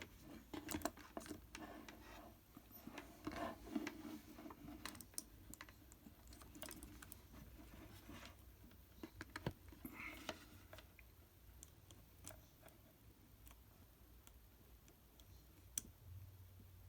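Faint, irregular clicks and taps of a multimeter and its test probes being handled on a table.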